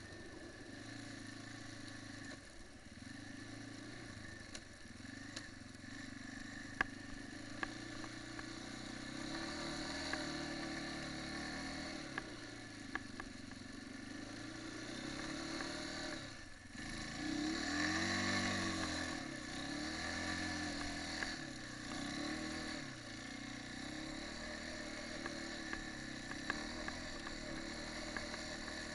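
Quad bike (ATV) engine running under way, its pitch rising and falling with the throttle, with the strongest rev-up and drop about two-thirds of the way through. A few sharp clicks and rattles sound over it.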